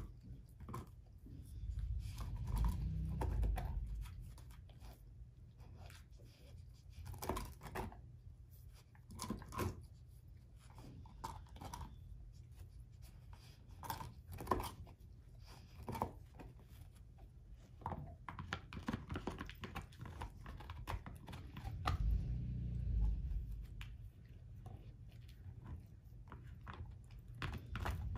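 German shorthaired pointer gnawing an air-dried, hair-on pig's foot, with irregular crunches and tearing as she works at the tough dried skin. Twice, a longer low rumble rises under the chewing.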